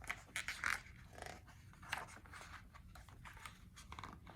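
Faint rustling of paper as a picture book's pages are handled and turned, a few short bursts in the first two seconds.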